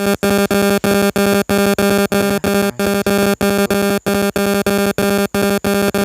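Loud electronic music that starts abruptly: a buzzy synth tone repeating in short, evenly spaced pulses, about three a second.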